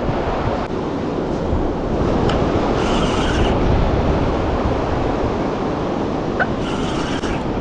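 Surf breaking and washing on the beach, a steady rush of water, mixed with wind buffeting the microphone; twice a brief hissing wash rises over it.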